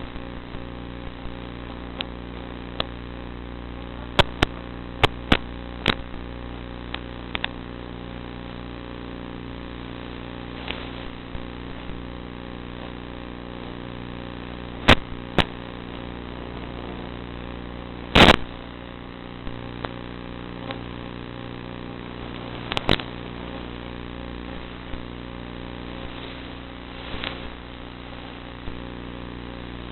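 Zagi flying wing's motor and propeller running at a steady drone, heard through the onboard FPV audio link, with scattered sharp clicks and pops. The loudest pop comes about eighteen seconds in.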